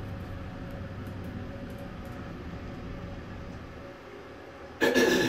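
Roped hydraulic elevator car running upward with a steady low hum and rumble, which eases about four seconds in as the car comes to a stop. Just before the end there is a sudden loud, brief burst.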